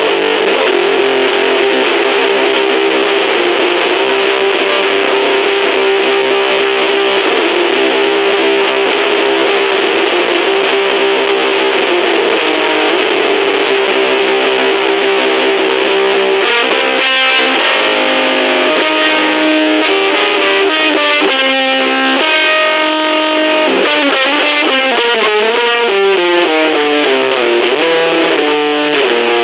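Electric guitar played through a fuzz pedal into a small battery-powered Junkbox amplifier, heavily distorted. A chord is held for about sixteen seconds, then the guitar moves through changing notes with pitch bends.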